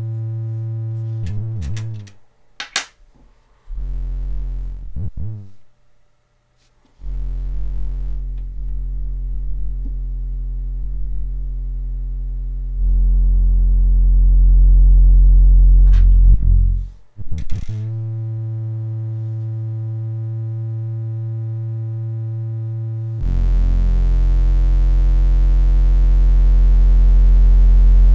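SOMA Lyra-8 analogue drone synthesizer playing deep, heavy bass drones. The drone drops out and comes back several times, with short crackling sweeps between. It gets louder about halfway through and again near the end.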